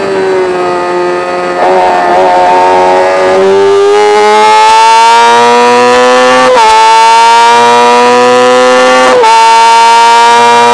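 Racing motorcycle engine at high revs, holding a steady note and then accelerating hard with the pitch climbing. The rise is broken by two quick upshifts, about six and a half and nine seconds in.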